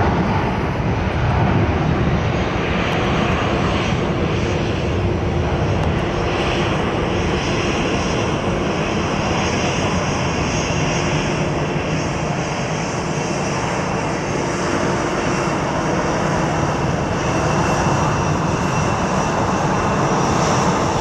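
Airbus A320-232's twin IAE V2527 turbofan engines at takeoff thrust, a loud steady rumble as the airliner rotates, lifts off and climbs away.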